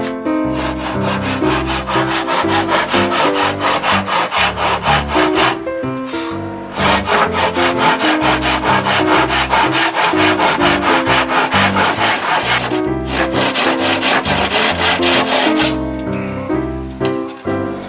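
Handsaw cutting wood in quick, regular back-and-forth strokes. It stops briefly about six seconds in, starts again, and stops about two seconds before the end. Piano background music plays throughout.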